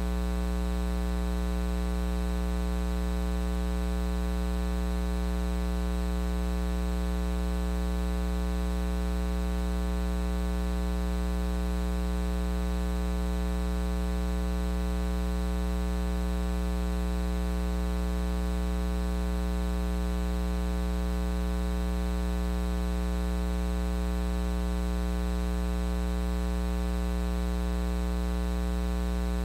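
Steady electrical mains hum: a low buzz with many overtones that does not change, with no speech audible over it.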